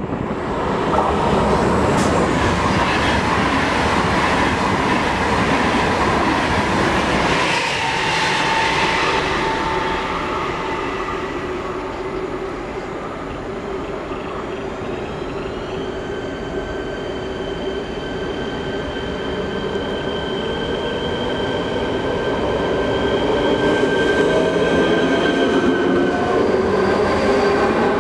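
A ČD class 471 CityElefant double-deck electric unit approaching and drawing in past the platform. A loud rushing noise fills the first ten seconds or so. Then the unit's electric drive whine comes up as several steady tones that slowly shift in pitch, with rail and wheel noise growing as it nears.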